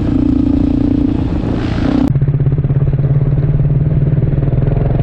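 Dirt bike engine running at steady revs. About two seconds in it cuts abruptly to a lower steady note, held while the bike rides up on its back wheel in a wheelie.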